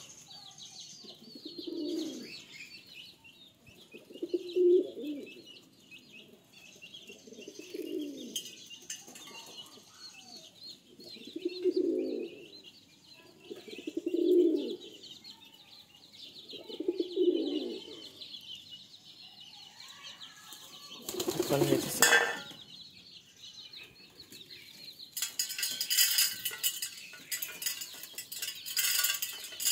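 Pigeons cooing, a low coo every two to three seconds, over steady high chirping from other birds. About 21 seconds in there is a short, loud burst of wing flapping. Near the end comes a rapid clicking and rattling.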